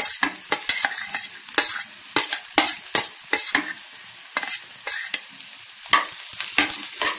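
Onion, green chillies, cumin and coriander seeds sizzling as they fry in oil in a pan. Frequent sharp scrapes and knocks come at an irregular pace as they are stirred.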